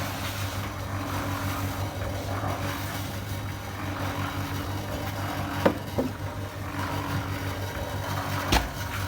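Concrete mixer running with a steady, even machine hum. Three sharp knocks cut through it, two close together a little past halfway and one near the end.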